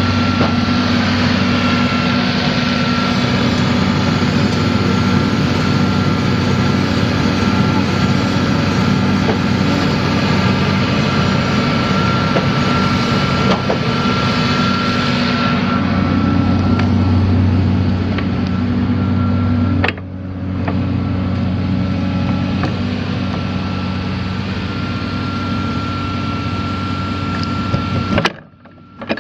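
Diesel engine of a 2006 Doosan DX300LC tracked excavator running steadily, with a thin high whine over the engine hum. The hiss eases about two-thirds of the way in, the sound dips briefly a few seconds later, and it cuts off suddenly near the end.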